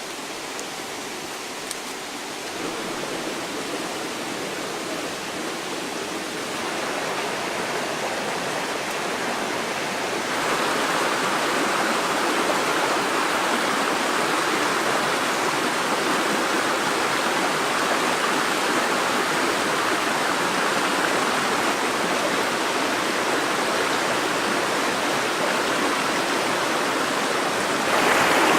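Flowing river water, a steady rushing that grows louder in a few steps, most clearly about ten seconds in.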